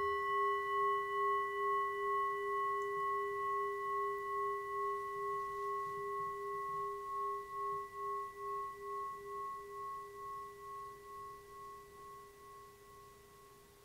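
Singing bowl struck once, ringing on with a few clear tones and a slow pulsing wobble as it gradually fades away.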